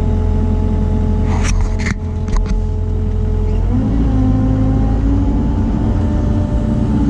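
Kubota mini excavator's diesel engine running, heard from inside the cab, with a few sharp knocks about one and a half and two and a half seconds in. A little under four seconds in the pitch steps up and a steady whine sets in as the hydraulics take load and the machine swings.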